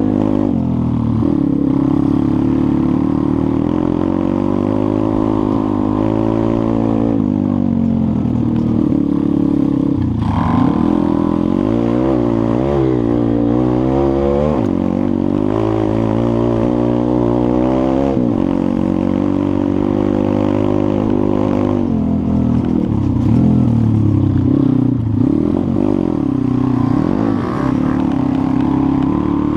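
Pit bike's small single-cylinder four-stroke engine heard from the bike as it rides. The pitch rises and falls with the throttle, with a run of quick rises and falls about a third of the way in and more near the end.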